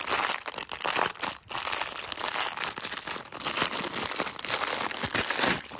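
Packaging being crinkled and pulled open by hand: a dense, irregular run of loud crinkling rustles.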